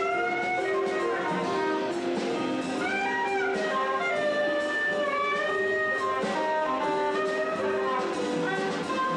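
Live jazz band playing: a soprano saxophone carries a melody of held notes that slide between pitches, over drums and cymbals.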